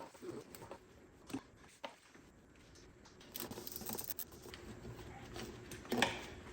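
Scattered light clicks and rustling of hands working on an engine, handling small metal bolts and tools, with a quick run of clicks in the middle and a sharper click near the end.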